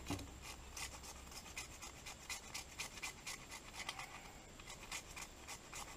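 Knife blade scraping wood into shavings: quick, faint, repeated scratchy strokes, a few a second.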